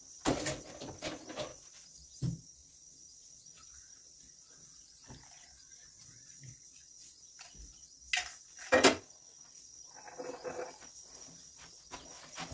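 Light clinks and knocks of an aluminium saucepan and ceramic cups as tea is poured into the cups, with two louder knocks about eight and nine seconds in.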